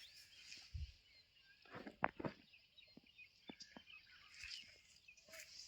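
Faint outdoor background of small birds chirping, with a few scattered light knocks; the sharpest knock comes about two seconds in.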